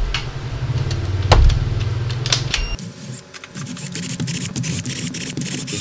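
Cordless electric screwdriver unscrewing the plastic housing of a cordless drill: a motor hum with scattered clicks, then from about three seconds in a run of rapid clicking.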